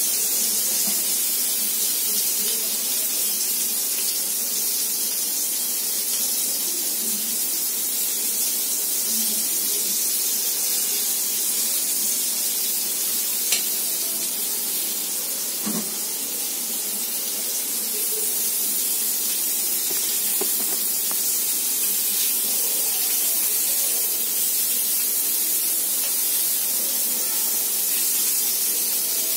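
Paneer tikka skewers sizzling in oil on a hot iron tawa over a gas burner: a steady high hiss, with a couple of brief knocks about halfway through.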